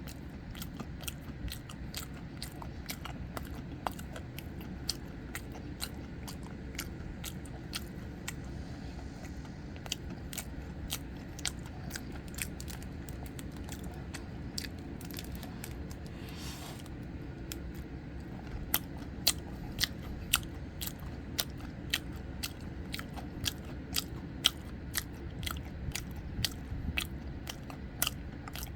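Close-up eating sounds of soboro red bean bread: steady chewing with many small wet mouth clicks and crumbly crunches, the clicks growing sharper and louder about two-thirds of the way through.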